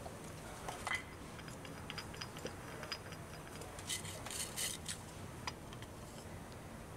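Faint scattered clicks and taps, with a short patch of scraping and rustling about four seconds in, as jack stands are handled and set under the car's subframe.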